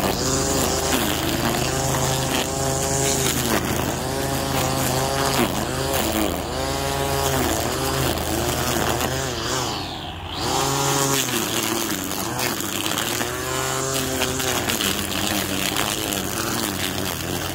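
Ryobi 18-volt cordless string trimmer running, its electric motor whine rising and falling in pitch over and over as it spins up and eases off in grass and weeds. The whine briefly drops away about ten seconds in, then picks up again.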